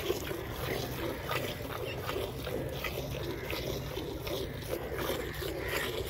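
Buffalo-pen ambience: scattered irregular scrapes and knocks over a steady low hum.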